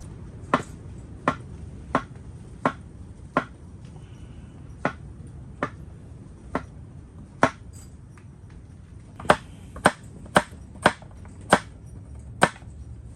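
Chopping: about fifteen sharp knocks, mostly about 0.7 s apart, with two short pauses and a quicker run of six near the end.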